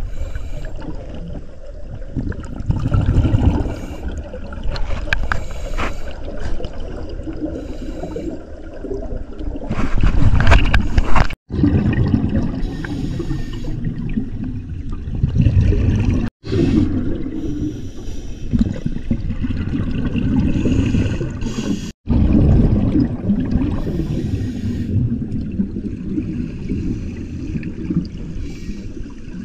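Underwater sound of scuba diving: muffled, rumbling gurgle of a diver's regulator and exhaled bubbles, rising in louder surges every few seconds. The sound cuts out sharply for an instant three times.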